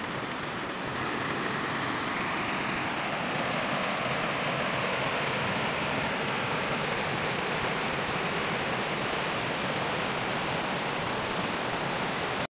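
River rapids: a steady, loud rush of white water over rocks, cutting off suddenly near the end.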